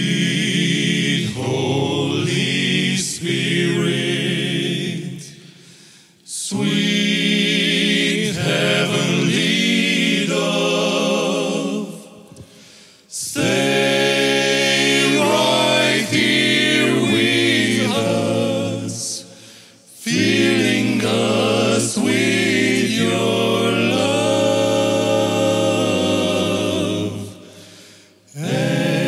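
Male vocal quartet singing a cappella in close harmony, in phrases of about six seconds with brief pauses between them.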